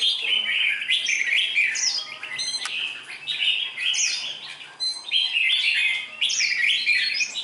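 Caged red-whiskered bulbuls singing: repeated bursts of quick chirping phrases with short falling whistles, broken by a couple of brief pauses.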